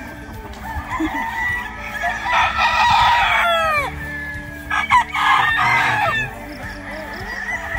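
Gamefowl roosters crowing: two loud crows, about two and a half seconds in and about five seconds in, the first trailing off in a falling tail.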